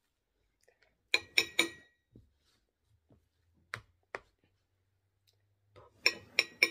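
A serving spoon knocking against the dishes as rice is scooped and shaken off onto a plate: three quick taps about a second in, two single knocks near the middle, and another cluster of taps near the end, some with a short ringing tone.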